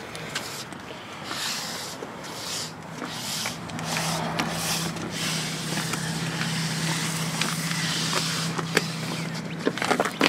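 Scraping, rustling and knocks of a spare tire being handled and loaded into the back of a truck. Under them runs a steady low hum that grows louder about three and a half seconds in.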